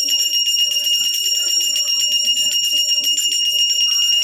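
Brass puja hand bell rung rapidly and without pause during aarti, a high ringing tone struck many times a second.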